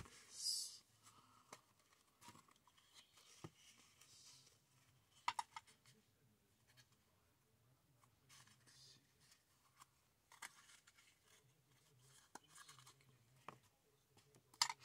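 Faint handling noise of a small plastic case: scattered clicks and light scraping as it is turned over and opened, with a quick run of sharp clicks about five seconds in.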